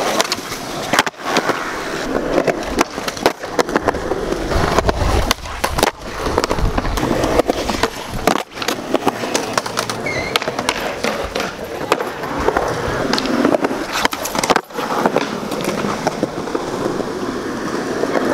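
Skateboard wheels rolling over rough concrete, with sharp clacks of the board striking the ground now and then.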